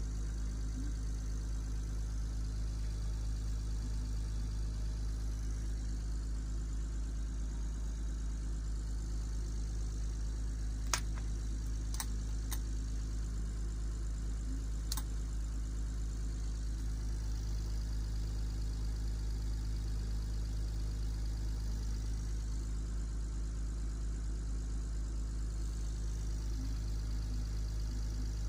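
Inboard boat engine idling steadily at about 1,000 rpm, a low, even drone. A few sharp clicks come about halfway through.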